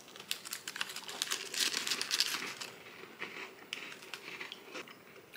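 Plastic bag inside a cookie box crinkling as a hand reaches in and takes out a thin gingersnap, with crisp clicks of the thin biscuits being bitten and chewed. The crinkling is densest in the first half and thins out later.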